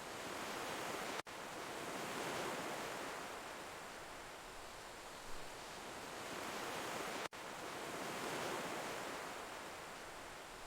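Sea waves washing on a shore: a steady rushing that swells and ebbs about every six seconds. The sound breaks off for an instant twice, about a second in and about seven seconds in.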